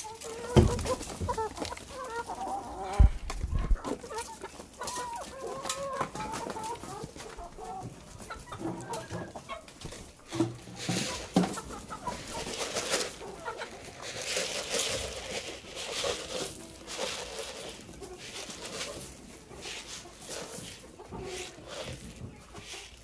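Chickens clucking, with two loud low thumps in the first few seconds. Through the second half come many short clicks and rustles.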